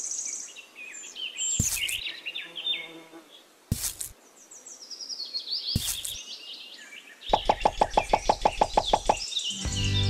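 Birds chirping in high, falling calls, with a sharp knock about every two seconds. Near the end comes a fast pulsing rattle of about eight beats a second, then music starts.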